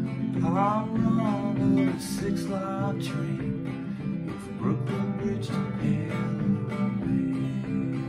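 Steel-string acoustic guitar strummed in a steady rhythm, with a man's voice singing short phrases over it in the first three seconds.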